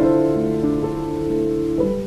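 Slow, calm instrumental music without words: soft held notes, with a new note entering about every half second.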